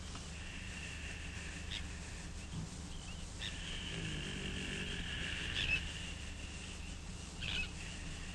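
Outdoor ambience of a steady high chirring with a few short bird chirps over it, and a low, rasping snore from a sleeping man about four seconds in.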